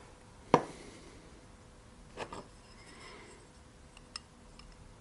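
Handling of small parts during gluing: one sharp click about half a second in, a pair of softer knocks a little after two seconds, and a small tick near four seconds.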